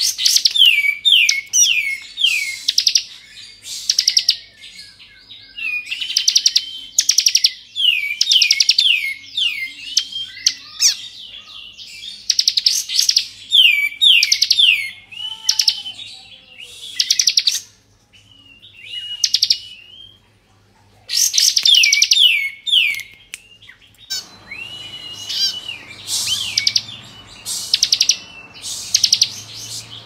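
Bar-winged prinia (ciblek kristal) singing its full 'ngebren' song: burst after burst of rapid buzzing trills mixed with quick down-slurred whistled notes, separated by short pauses.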